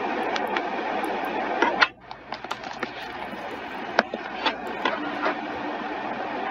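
Scattered small plastic clicks from a hand pressing a pushbutton and tapping a laptop keyboard, over a steady background hiss that drops about two seconds in.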